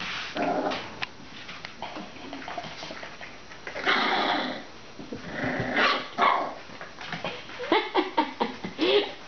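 English bull terrier puppy, a few weeks old, giving a couple of small barks, then a quick run of short yips near the end.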